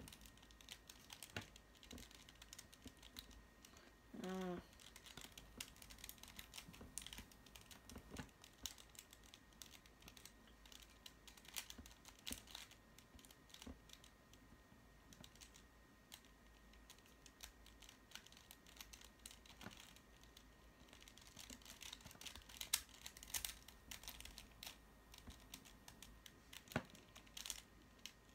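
Master Morphix twisty puzzle being turned by hand: faint, irregular plastic clicks and clacks of its layers, coming thicker near the end. A short hum of a voice about four seconds in.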